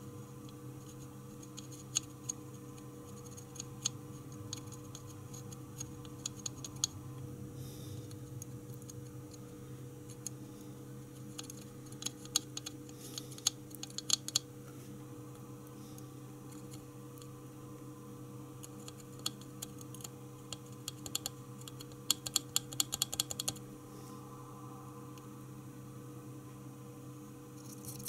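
Soldering iron reflowing the solder joints of a throttle body's mass air flow sensor board: faint, irregular crackling clicks from the hot tip and flux at the joints, in clusters about halfway through and again shortly before the end, over a steady low hum.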